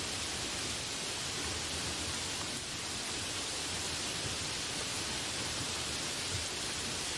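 Heavy rain pouring onto trees and broad banana leaves, a dense, steady hiss.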